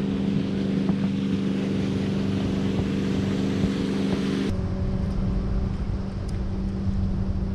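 Motorboat engine running at speed as the boat passes, a steady hum, with wind on the microphone. The sound changes abruptly about halfway through.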